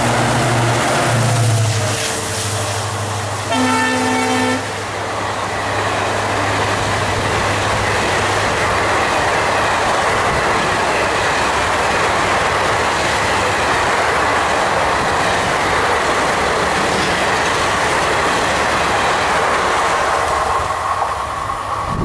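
EMD WDP-4 diesel locomotive running through at speed, giving one horn blast about a second long about four seconds in. Then a long steady rumble and clickety-clack of the express coaches rolling past, fading near the end as the train draws away.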